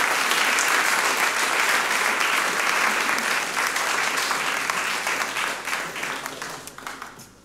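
Audience applause, a dense patter of many hands clapping that thins out and dies away over the last couple of seconds.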